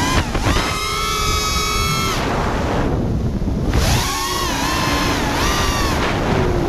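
Brushless motors and 5-inch props of an FPV racing quad (DYS SE2205 2300KV motors) whining, the pitch rising and falling with throttle, over wind buffeting the onboard camera's microphone. About two seconds in the whine drops out for over a second as the throttle is cut, then comes back with more rises and falls.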